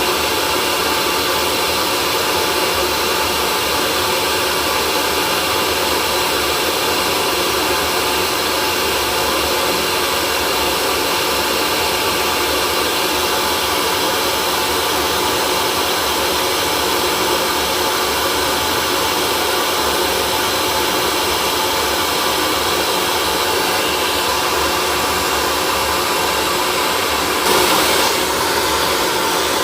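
Electric hair dryer running steadily with an even blowing hiss and motor whine. There is a short, slightly louder rush about two seconds before the end.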